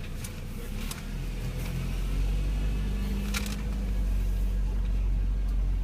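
Car engine and road rumble heard from inside the cabin as the car pulls away, growing louder about a second in, with a steady hum. A single sharp click about three seconds in.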